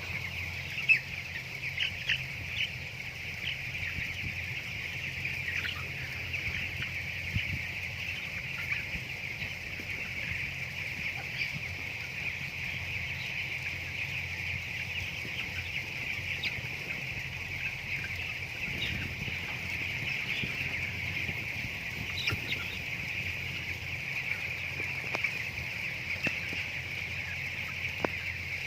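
A flock of broiler chickens chirping and clucking steadily, a dense overlapping chatter of many birds. A few sharp knocks stand out, the loudest about a second in.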